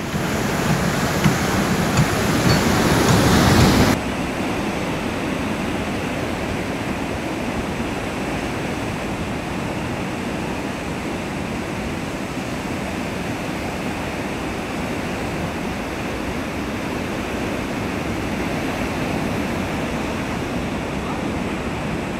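Heavy surf breaking on a beach: a steady rushing wash of waves. For about the first four seconds a louder hiss of wind on the microphone lies over it, cutting off suddenly.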